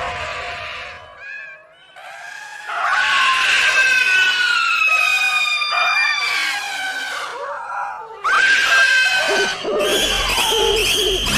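High-pitched screams, typical of a horror sound effect. The cries are long and sustained and slide slightly downward, and a new one breaks in suddenly about eight seconds in. Near the end a low drone comes in as music begins.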